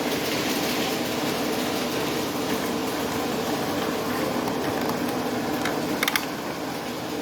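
O gauge model trains running on the layout: a steady hum and rumble of locomotive motors and wheels on the track, with a brief few clicks about six seconds in.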